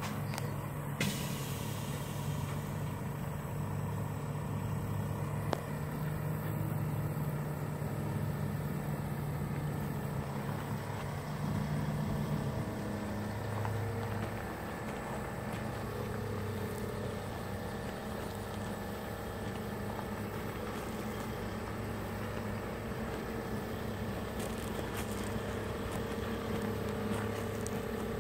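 Heavy diesel truck engine running at low speed as the rig pulls a fifth-wheel trailer and tow dolly, a steady low hum whose note shifts about halfway through.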